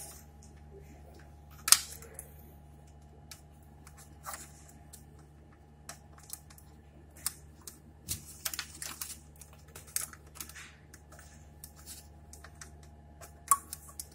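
Telephone cord plugs being handled and clicked into the extension ports of a CCL 108S EPABX, heard as scattered small clicks and cable rustle over a faint low hum. The sharpest click comes just under two seconds in, with a cluster of clicks from about eight to ten seconds in.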